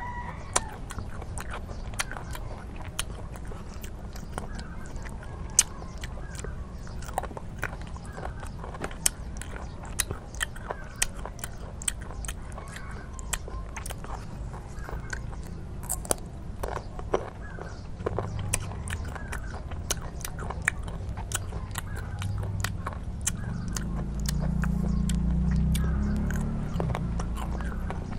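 Close-up chewing and biting of crunchy fruit: wet mouth sounds with many sharp, irregular crisp clicks. A low rumble swells near the end.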